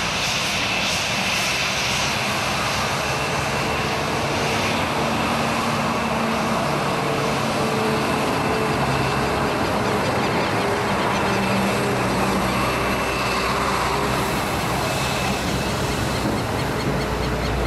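Boeing 737-700's twin CFM56-7B turbofans running at low taxi thrust, a steady jet whine with a high fan tone over a low rumble as the airliner taxis past and turns.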